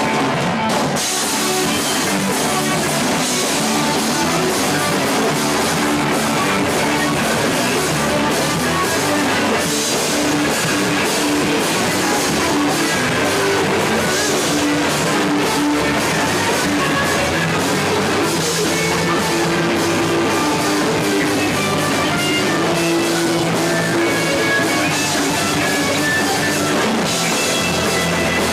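Loud rock music with a drum kit and guitar, playing densely and steadily.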